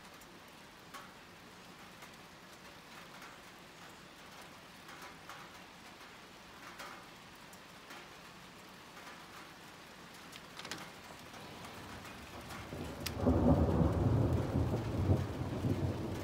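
Light rain pattering, with scattered single drops ticking on a surface. About three-quarters of the way through, a roll of thunder comes in, a loud low rumble that carries on to the end.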